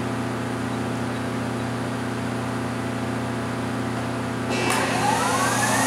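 Okuma LC-20 CNC lathe humming steadily, then about four and a half seconds in its spindle starts and spins up toward 1000 RPM with a rising whine. The spindle sounds good and quiet, a sign of a healthy spindle.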